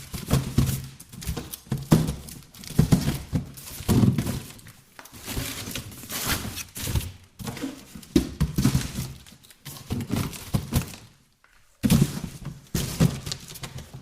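Cardboard boxes being handled and shifted: an irregular run of thuds and knocks with cardboard scraping and rustling between them, pausing briefly about three quarters of the way through before the handling resumes.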